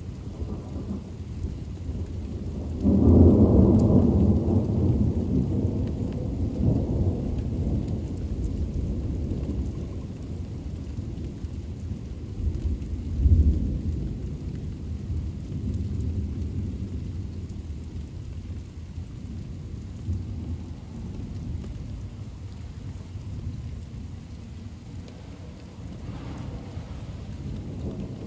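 Thunder over steady rain: a loud peal breaks suddenly about three seconds in and rolls away over several seconds, with a second, shorter clap near the middle and a fainter rumble near the end.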